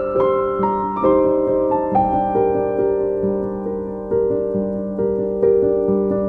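Background piano music: a slow melody of notes struck about two or three times a second, each fading away over held lower notes.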